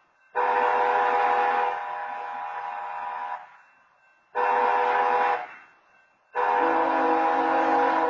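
BNSF diesel locomotive air horn sounding the grade-crossing signal, long-long-short-long: a long blast, a short blast, then the final long blast. The engineer is sounding the horn because the crossing's wayside horns are not active.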